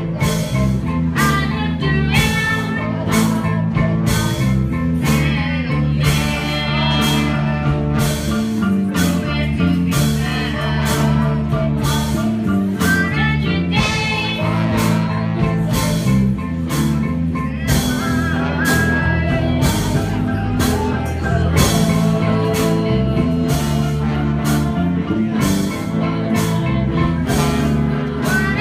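A live band playing with several singers at microphones, over a steady, even beat and bass line.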